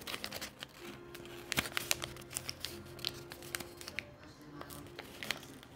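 Lined notebook paper crinkling and rustling as it is unfolded by hand, a string of quick crackles.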